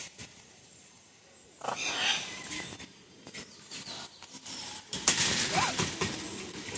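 Harsh parrot squawking about two seconds in. Near the end comes a clank and rattle from the aviary's metal gate being unlatched and opened.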